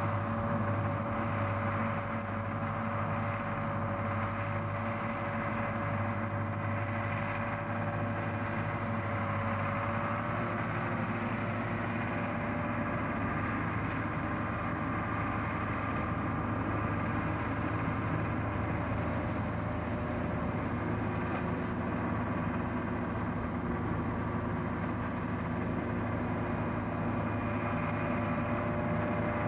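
Clayson M103 combine harvester running steadily while threshing wheat: its engine and threshing machinery make an even hum with several held whining tones.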